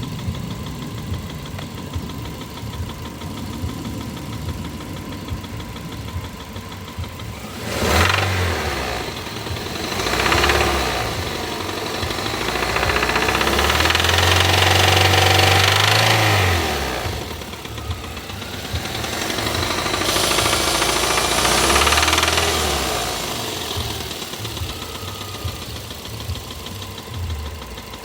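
Toyota Avensis 1.8 VVT-i four-cylinder petrol engine idling and being revved several times: a quick blip about eight seconds in, another shortly after, then longer revs held up around the middle and again later. Through the revs it makes a knocking noise that is clearly noticeable above 1500 rpm.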